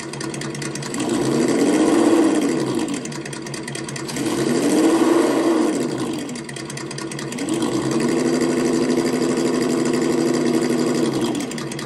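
WonVon engine sound simulator playing a simulated engine through its small speaker: idling, revving up and back down twice, then held at higher revs for about four seconds before dropping back to idle near the end.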